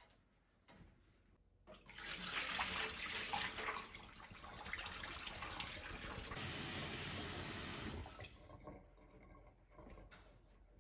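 Water running and splashing in a kitchen sink as raw pork ribs are rinsed in a stainless-steel bowl. The water starts about two seconds in and fades near the end.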